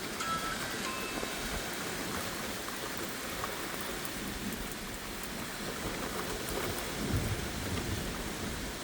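Steady rain falling during a severe thunderstorm, with a low rumble of thunder swelling about seven seconds in.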